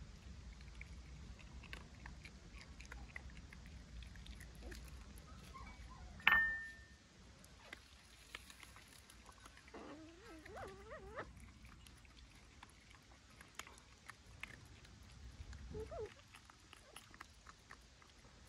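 Faint animal sounds: a sudden sharp sound about six seconds in, then a short wavering whine around ten to eleven seconds in, among light scattered clicks.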